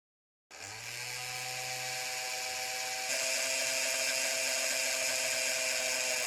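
A steady mechanical whirr with heavy hiss, like a small power tool or motor, that starts abruptly, steps up louder and slightly higher about halfway through, and cuts off at the end.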